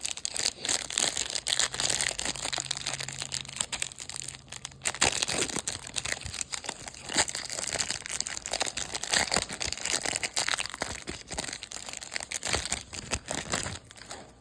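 Plastic trading-card pack wrapper crinkling and being torn open, with many small crackles and clicks throughout as the packaging and cards are handled.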